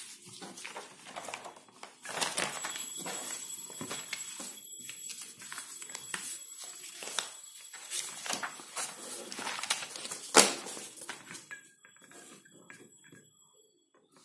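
Sheets of paper being handled and turned over on a table, rustling in irregular strokes, with one sharp tap about ten seconds in. It goes quieter for the last few seconds.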